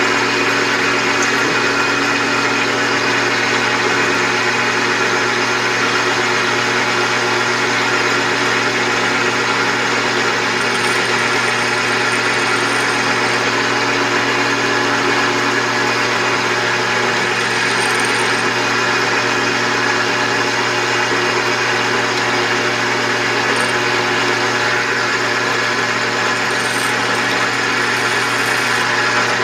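Drill press running steadily as a twist drill bit is fed into a cast-iron cylinder head casting. The motor gives a constant hum under a grinding cutting noise, with a few faint high squeals now and then.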